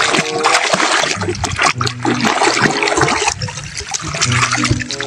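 Running water splashing and trickling over a toy as it is rinsed clean of mud.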